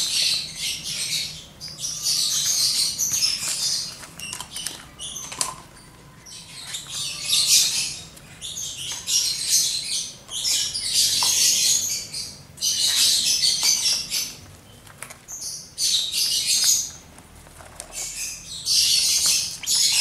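Month-old lovebird chicks giving harsh, hissy begging calls in repeated bursts a second or two long, the sound of hungry chicks at feeding time.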